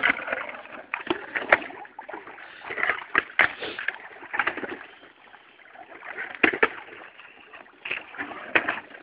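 Water splashing and sloshing at the edge of thin ice about a centimetre to a centimetre and a half thick, with irregular sharp knocks and cracks every second or two, typical of the ice being broken.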